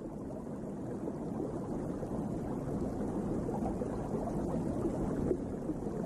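Muffled underwater ambience: a low, steady wash of water noise with no distinct events.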